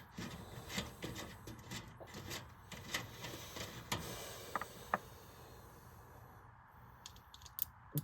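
Faint, irregular clicks and light scraping of tools and metal parts being handled while working at the bolts of a window fan, busiest in the first half, with a few sharper clicks near the end.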